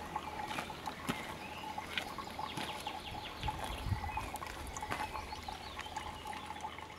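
Spring water trickling into a small stone-lined basin, a steady soft running, with birds chirping.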